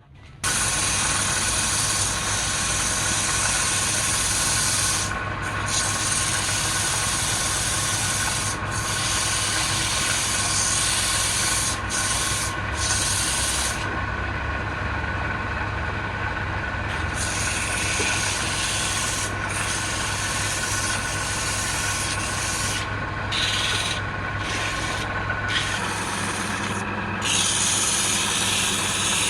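Wood lathe running while sandpaper is pressed against the spinning wood: a steady motor hum under a hiss of sanding. The sound starts abruptly and is steady, and the high hiss drops out briefly several times as the paper lifts off.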